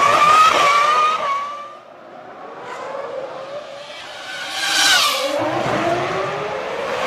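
Formula One cars' 3.0-litre V10 engines screaming at high revs as they pass, one after another. The first engine note peaks and fades in the first two seconds. A second car passes loudly about five seconds in, its pitch shifting as it goes by.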